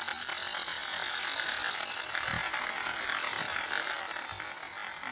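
Toy RC car's small electric motor and plastic gears whirring steadily as it drives, a high-pitched mechanical whine.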